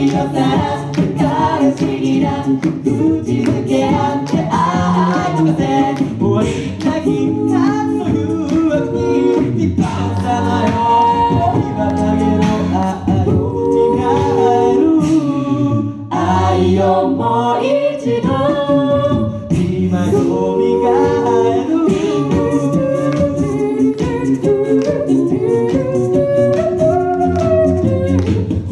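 Mixed-voice a cappella group of six singing through microphones: a lead voice over stacked harmony parts, with a beatboxed rhythm.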